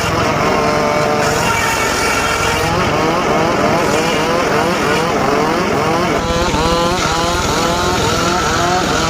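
Homemade engine-driven circular saw bench cutting a teak log: a loud, continuous engine-and-blade sound whose pitch keeps dipping and recovering as the blade takes the load.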